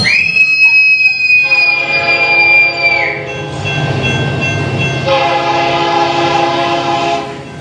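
A long high scream at the start, overlapped and drowned out by a passing-train sound effect: a low rumble with a train horn sounding, which blares louder about five seconds in.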